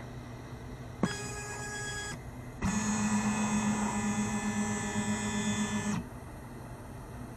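Stepper motors of a lab gantry robot driving its carriage along lead screws: a pitched whine with many overtones, first a short move of about a second, then a louder move of about three seconds that stops abruptly.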